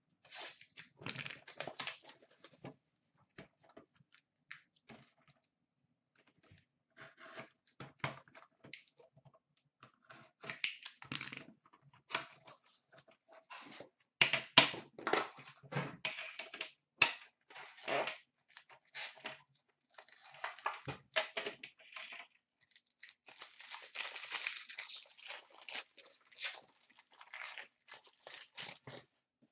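Plastic wrapping being torn off and crinkled while a sealed hockey card box and its tin are opened, with irregular sharp clicks and knocks of cardboard and tin being handled and a longer stretch of crinkling near the end.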